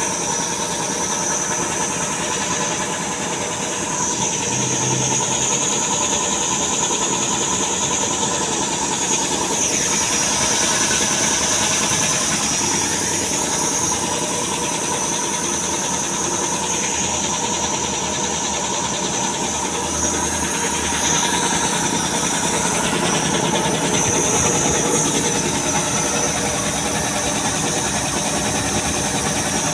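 Puma 5 HP piston air compressor (20/80 model) running steadily after a repair with new piston rings, a continuous mechanical run with a steady high hiss.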